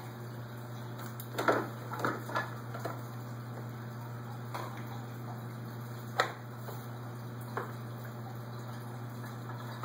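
Plastic toy dishes and play-kitchen pieces knocking and clattering as a child handles them: a scatter of light knocks, two of them sharper, over a steady low hum.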